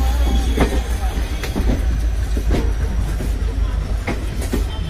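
Moving passenger coach of a train: the wheels clack irregularly over rail joints and points, about eight sharp clacks, over a steady low rumble.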